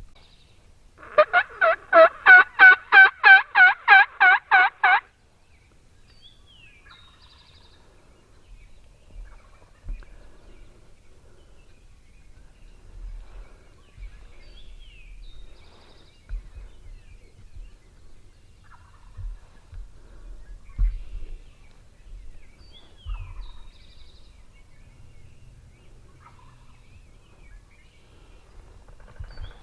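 A loud series of about a dozen turkey yelps, about three a second, lasting some four seconds, typical of a hen yelping or a hunter's yelping call. Faint, short songbird chirps follow.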